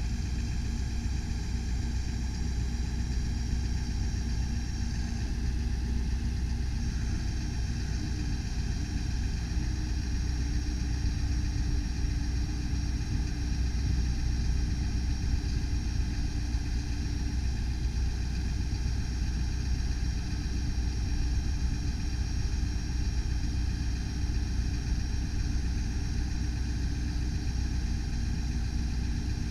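Ford F550 bucket truck's engine idling steadily while its hydraulic aerial boom is being moved, a constant low hum with thin steady whining tones above it.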